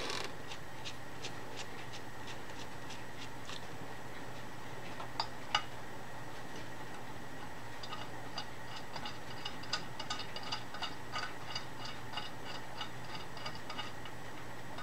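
Light metallic ticking and clicking as a tap in a drill-press chuck is turned by hand: a few faint ticks at first, two sharper clicks around the middle, then several quick clicks a second for about five seconds. A steady low hum runs underneath.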